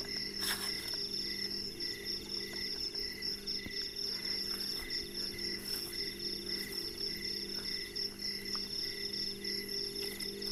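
A chorus of night insects chirping steadily, several rhythmic pulsing trills at different pitches overlapping, with a low steady hum underneath.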